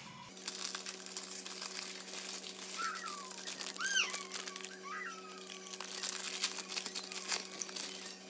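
Plastic instant-noodle packet crinkling as it is handled, a dense run of crackles over a steady low hum, with a few short high chirps in the middle.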